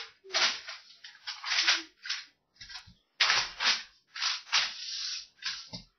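A large paper fold-out map being handled, rustling and crinkling in a quick string of irregular bursts.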